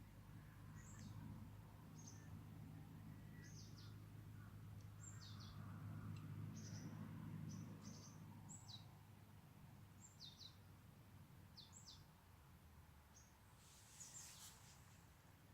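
Faint, high, thin bird calls: short notes sliding downward, often in pairs, repeated about once a second. They sit over a low steady hum that fades about halfway through, with a brief rustle near the end.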